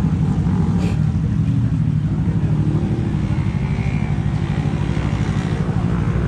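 Kawasaki Z250 engine with an aftermarket SeaPro muffler running steadily while the motorcycle cruises at an even throttle. There is a brief click about a second in.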